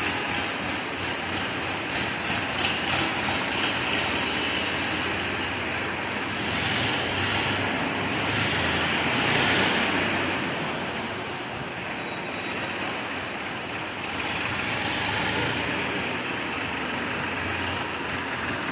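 Massey Ferguson 7250 DI tractor's three-cylinder diesel engine running as the tractor drives, getting a little louder for a few seconds near the middle.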